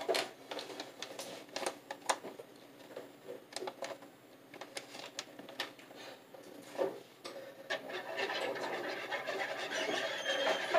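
Kitchen utensils clicking and tapping against a mixing bowl in irregular knocks, turning into denser scraping and stirring near the end as flour is mixed into pancake batter.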